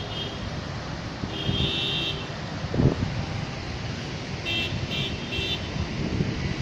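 Vehicle horn honking in street traffic over steady road noise: one longer honk about a second in, then three short honks in quick succession past the middle.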